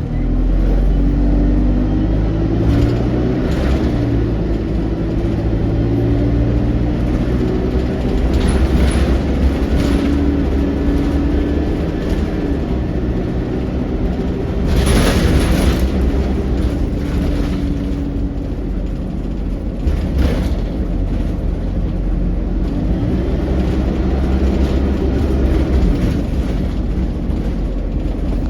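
ADL Enviro200 single-deck bus heard from inside the cabin under way: a steady low rumble with an engine whine that rises in pitch as the bus accelerates, drops, and rises again several times, through the shifts of its Allison 2000 automatic gearbox. There is a short loud rattle about halfway through.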